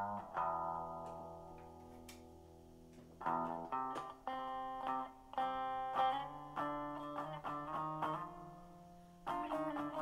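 Background music on a plucked guitar: notes and chords left to ring and fade, sparse at first and busier from about three seconds in.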